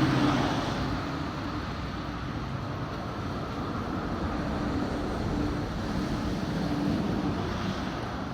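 Steady street noise of passing vehicle traffic, with a faint engine hum under it.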